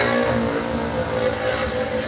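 Road traffic: a passing vehicle's engine hum fading as it moves away, over steady traffic noise.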